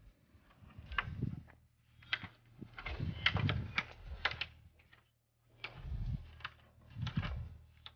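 Irregular clicks, taps and rustling from hands handling parts of the roof rack, in several short spells with pauses between.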